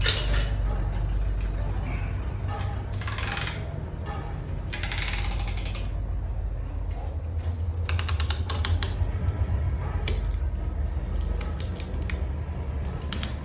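Metal clicks and clinks of hand work on a stripped Ashok Leyland diesel engine block, with pistons in ring compressors being fitted into the bores, bunched around eight and twelve seconds in. Two short aerosol spray hisses come about three and five seconds in, over a steady low hum.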